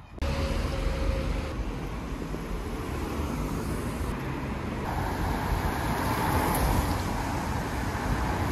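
City street traffic noise: cars driving past in a steady wash of engine and road noise over a low rumble, growing a little louder about five seconds in.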